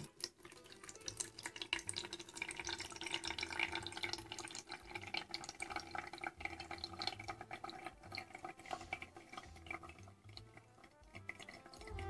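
Water dripping and trickling from a Casdon Morphy Richards toy coffee maker into its glass jug: faint, irregular drips and splashes that thin out near the end.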